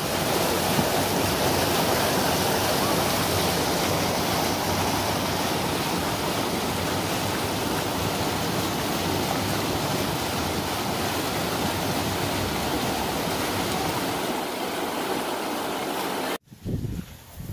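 Turbulent water rushing and churning in a strong flow, a steady dense rush that stops abruptly shortly before the end.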